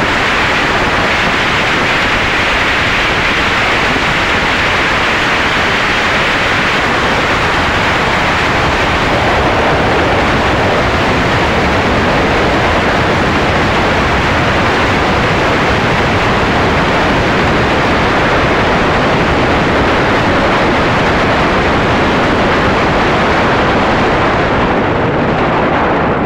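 Loud, steady rush of wind buffeting the microphone while travelling fast in the open, with no distinct engine note; the highest hiss thins slightly near the end.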